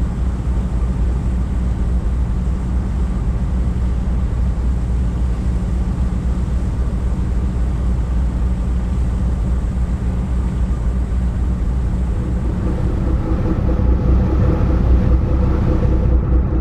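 Ferry's engines running with a steady low drone. A few higher steady hums join near the end.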